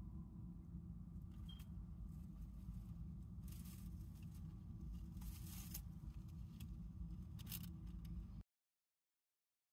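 Shredded newspaper bedding rustling and crinkling in a few brief bursts as a torpid hamster shifts in it, over a low steady rumble. The sound cuts off to silence about eight and a half seconds in.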